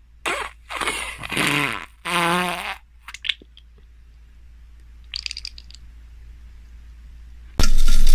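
Cartoon pooping sound effect: a run of fart-like noises over the first three seconds or so, the last one with a wavering pitch. Near the end a sudden loud rush of water starts, a toilet flush.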